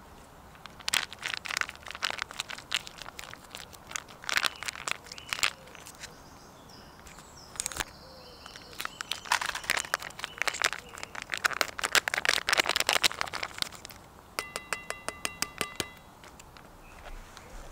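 Foil pouch of wet dog food being torn open and squeezed out into a metal camping bowl: bursts of crinkling and crackling, busiest about halfway through. A short run of rapid, even ticks follows near the end.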